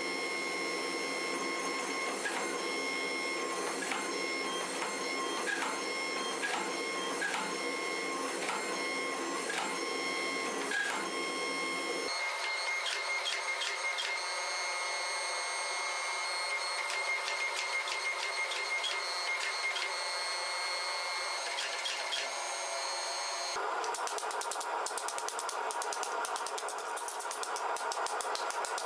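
Hydraulic forging press running, a steady machine whir with several held tones and faint ticking as it squeezes a hot billet. The tone changes abruptly about 12 and 23 seconds in.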